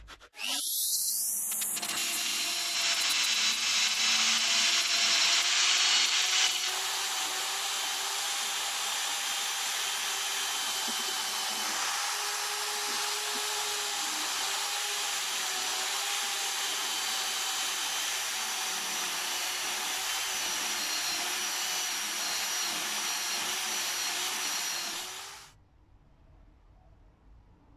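Power tool with a red abrasive wheel spinning up with a rising whine, then running steadily as it scrubs rust off the jaws of old end-cutting pincers. It cuts off suddenly near the end.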